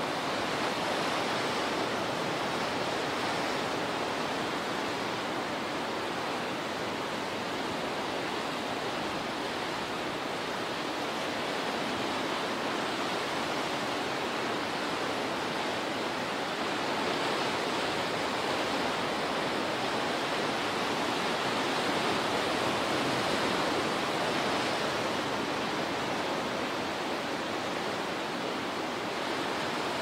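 Ocean surf breaking and washing over a rocky shore: a continuous rush of churning water that slowly swells and eases, with no single sharp crash standing out.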